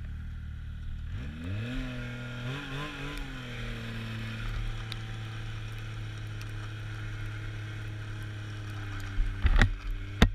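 Snowmobile engine heard from the rider's seat, rising in pitch as the sled speeds up about a second in, then running at a steady cruising note. A few loud knocks come near the end.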